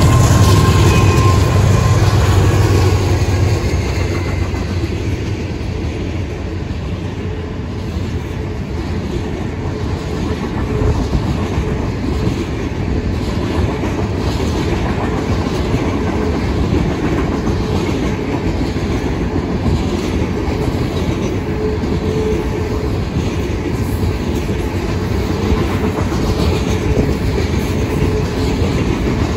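Freight train rolling past. A diesel locomotive's deep rumble is loudest at the start and eases after a few seconds into the steady rolling and clickety-clack of the freight cars' wheels over the rail joints.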